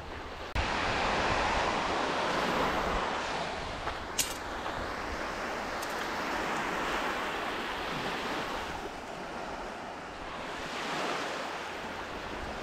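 Waves breaking on the beach and wind on the microphone, a steady rushing noise, with one short click about four seconds in.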